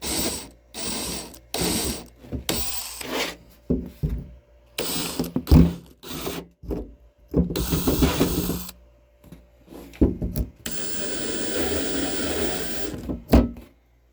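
Power drill run at low speed in short trigger bursts, boring small holes through the punch-out mounting points of a diesel heater's fuel tank; near the end it runs steadily for a couple of seconds.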